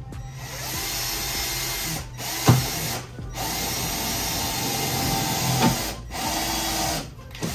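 Cordless drill driving self-tapping screws through a fiberglass fender flare into a car's body panel. It runs in several bursts with short stops between them, with a sharp knock about two and a half seconds in.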